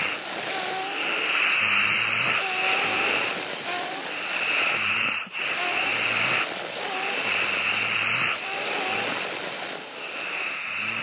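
A sleeping person snoring, breath after breath, each breath a raspy hiss over a low rattle.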